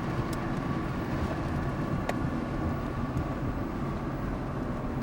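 A car driving along, with a steady low rumble of engine and road noise heard from inside the cabin and a couple of faint clicks.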